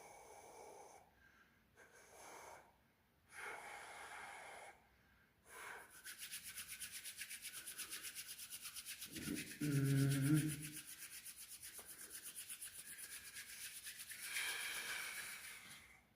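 Rustling, then a fast, even rubbing of about six strokes a second that goes on for about ten seconds, like cloth or a hand rubbing close to the microphone. A short low hum of a voice comes about ten seconds in.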